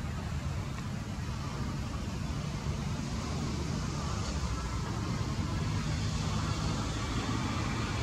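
Steady low rumble of road traffic, with no bird calls heard.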